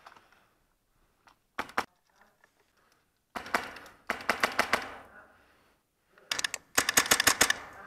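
Airsoft M4 with a PolarStar Jack HPA engine firing several short bursts of rapid, crisp shots, about seven a second, echoing in the confined rock cave.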